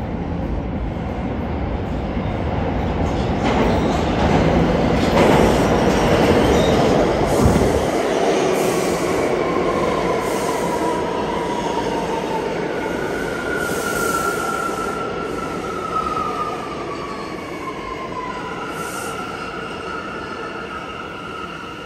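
Bombardier R179 subway train pulling into an underground station: a loud rumble of wheels on the rails as it enters, easing off about eight seconds in. Then high squealing and whining tones slide down in pitch as the train brakes to a stop.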